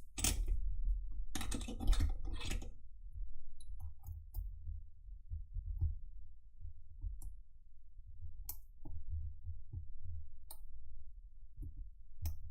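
A thin steel lock pick and tension wrench scraping and clicking inside a cheap four-pin padlock's keyway during single-pin picking. A dense patch of scraping clicks comes in the first few seconds, then scattered single sharp clicks.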